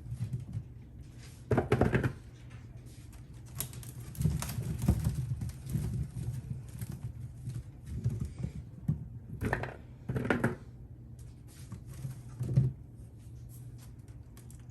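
Potatoes being handled and set down while they are weighed: irregular knocks and rustles in a few clusters, over a steady low hum.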